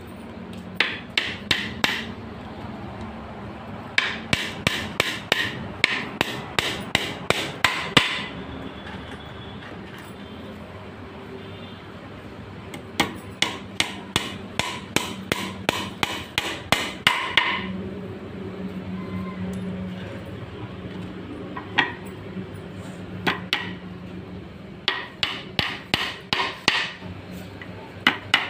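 Hammer striking repeatedly in quick runs of blows, about three or four a second, with short pauses between the runs, over a steady low hum.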